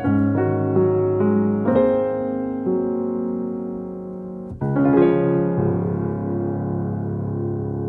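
Background piano music: a run of single notes over a held bass, a brief break about four and a half seconds in, then long sustained chords.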